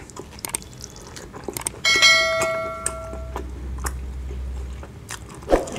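Bell chime sound effect of a subscribe-button animation, struck once about two seconds in and ringing out over about a second and a half, with faint clicks before it.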